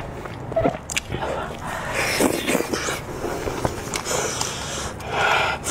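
Close-miked wet chewing and lip-smacking on spiced sheep's head meat, with sticky tearing as the cooked head is pulled apart by hand. A few breathy puffs, strongest near the end, as she breathes over food that is still very hot.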